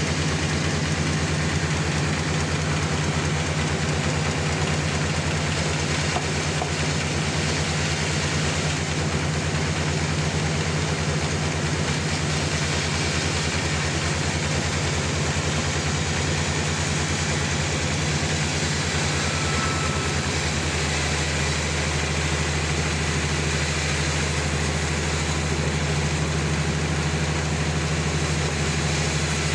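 Sawmill running: a steady machine hum with a constant rush of noise above it, its lowest note dropping slightly about two-thirds of the way through.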